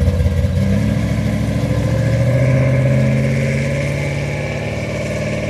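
Second-generation Chevrolet Camaro engine pulling away and accelerating, its pitch rising over the first few seconds, then holding steady and fading slightly as the car drives off.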